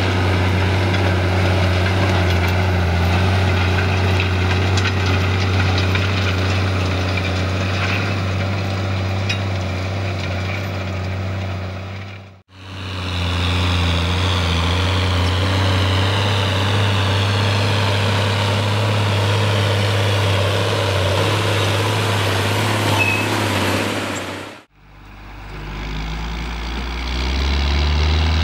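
John Deere tractor's diesel engine running steadily under load as it pulls a disc ridger through dry soil, a deep even hum. The sound drops out briefly twice, about twelve seconds in and again a few seconds before the end.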